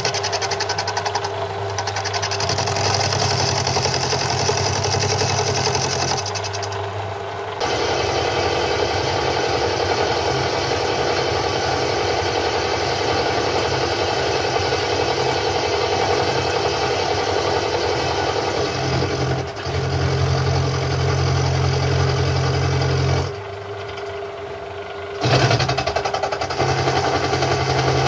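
Lathe with a belt-driven milling attachment and its electric motor running while a cutter mills a slot in a metal socket tool. It gives a steady machine hum with continuous cutting noise, and the sound changes abruptly a few times.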